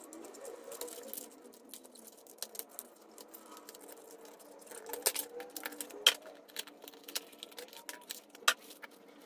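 Toy blasters being unpacked by hand: cardboard backing cards and a box handled, with light rustling and many scattered small clicks and knocks of plastic, the sharpest about five, six and eight and a half seconds in.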